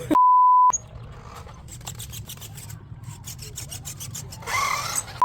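A short electronic beep, a pure steady tone, for about half a second just after the start, and the same beep again right at the end. Between them, faint rubbing and light clicking handling noise.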